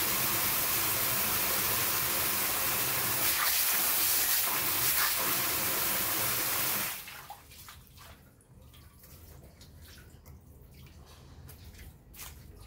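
A strong jet of water from a tap splashing into a metal basin full of water, a steady rushing splash. About seven seconds in the flow stops, leaving scattered drips and trickles into the basin.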